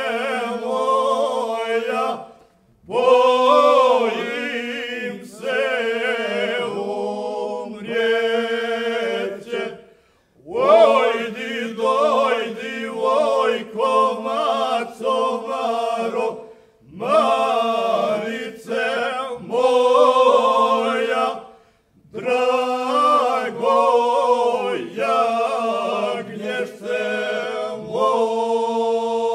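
Male folk singing group singing a traditional Banija song unaccompanied, a steady low held note beneath the lead melody. The song goes in long phrases, with brief breaks for breath four times.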